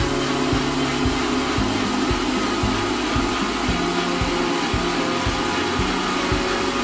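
Electric mixer grinder running at speed, its stainless-steel jar blending milk and sapota fruit into a shake. It makes a steady, even whir.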